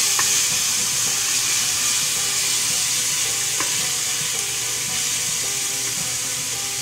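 Chopped onion, parsley, celery and garlic sizzling steadily in hot sunflower oil in a frying pan while a spoon stirs them, with a couple of light spoon knocks against the pan.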